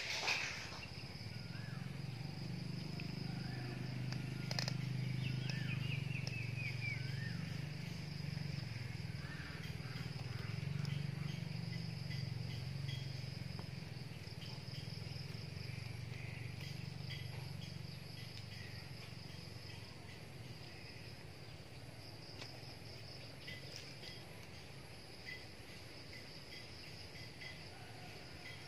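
Outdoor garden ambience: insects chirring steadily at a high pitch, with a few bird chirps in the first several seconds. A low steady hum from an unseen source runs under them and fades out about two-thirds of the way through. A short sharp click comes right at the start.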